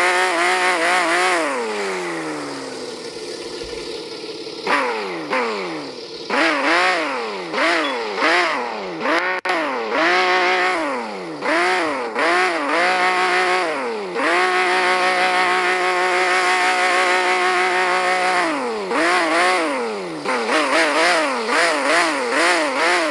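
Video game vehicle engine revving up and down over and over in quick rises and falls. It holds a steady high pitch for about four seconds past the middle, then drops away.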